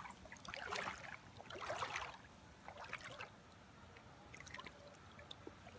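Faint river water trickling and flowing around a wading angler, with scattered soft clicks and two brief rustles as a small smallmouth bass is handled.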